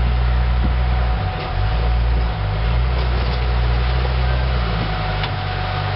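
Lifted Jeep Cherokee XJ's engine running at low revs as it crawls over boulders, a steady low rumble with a few faint ticks.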